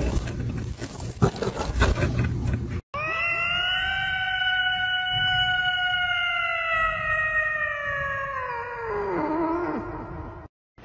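A domestic cat giving one long, drawn-out meow lasting about seven seconds, its pitch sliding down at the end. Before it come about three seconds of scratchy clicks and rustling.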